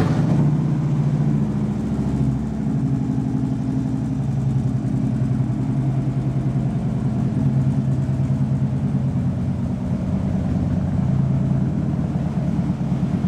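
The V-twin engine of a 2011 Harley-Davidson Road King catches and settles into a steady, even idle, just after an oil change and tune-up.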